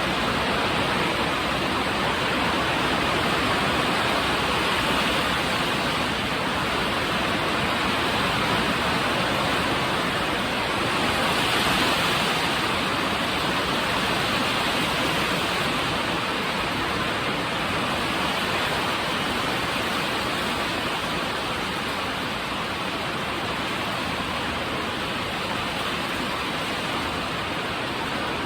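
Steady rain, a continuous even hiss that swells slightly about twelve seconds in.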